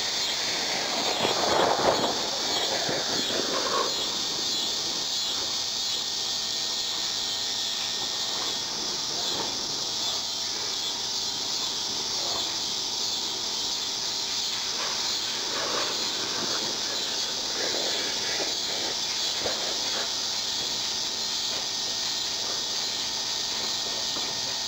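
A steady, high-pitched chorus of insects, with a louder rough, rushing noise that swells about one to four seconds in.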